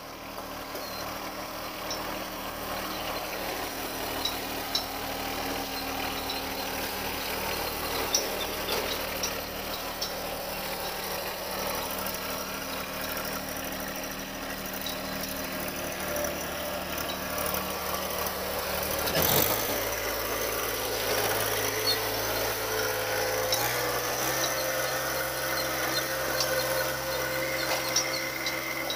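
John Deere compact tractor engine running steadily while it backs a boat trailer into the water and pulls it back out, its engine note shifting about two-thirds of the way through. A sharp clunk sounds at about the same moment.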